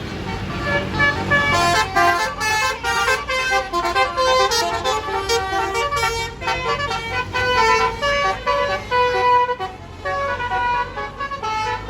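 A bus's Basuri telolet horn, a multi-tone air horn, playing a quick melody of short notes that jump between several pitches, with a brief break near the end. A bus engine runs underneath.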